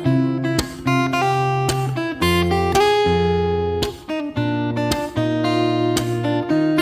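Background music: plucked acoustic guitar playing chords that change about once a second.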